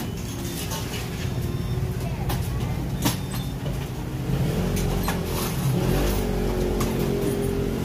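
Busy drink-shop counter: a steady low hum with scattered sharp clicks and clatters of cups and utensils being handled.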